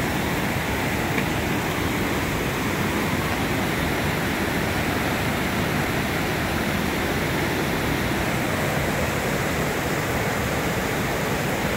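Bark Camp Creek Cascades waterfall rushing steadily into its plunge pool: a constant, unbroken roar of falling water.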